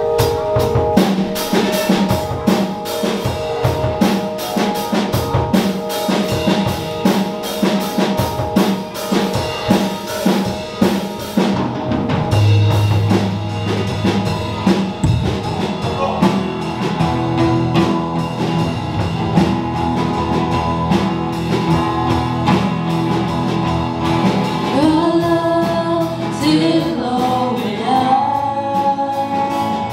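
Live church worship band playing, with a steady drum-kit beat under guitar and keyboard. A group of singers comes in with the song about 25 seconds in.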